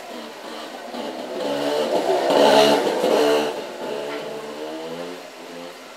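A vehicle's engine passing by: it grows louder to a peak about two and a half seconds in, then fades away.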